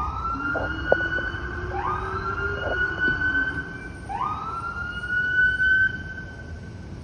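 Police vehicle siren sounding in three rising wails. Each sweeps quickly upward and then holds a high tone for about two seconds before the next begins. A single sharp tap comes about a second in.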